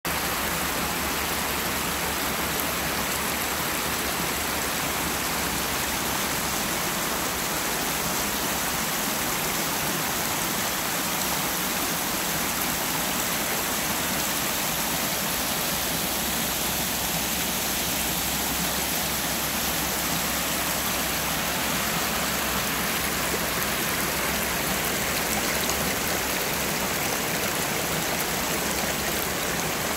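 Shallow creek water rushing over stepped rock ledges and a small tiered cascade: a steady, even rushing.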